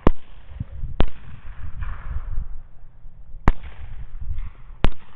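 Four gunshots from hunters firing at hogs, each a sharp crack, unevenly spaced: one right at the start, one about a second in, and two more near the end. A steady low rumble sits beneath them.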